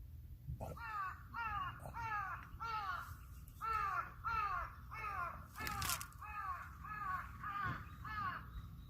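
Crow cawing over and over in a long run of harsh caws, about two a second.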